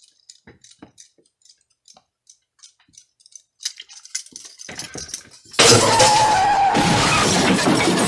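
A few faint clicks of a spoon against a glass mixing bowl, then about five and a half seconds in a sudden loud crash of shattering glass that goes on for a few seconds.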